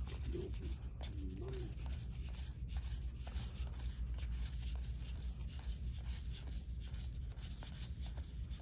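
Trading cards being handled and flipped through by hand: soft, irregular slides and taps of card stock, with a brief low murmur from a voice about half a second to a second and a half in, over a steady low hum.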